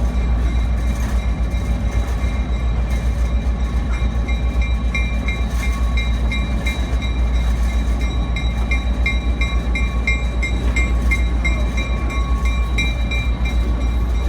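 Skunk train running, heard from on board: a steady low rumble, joined about four seconds in by a quick high-pitched ticking that repeats several times a second until near the end.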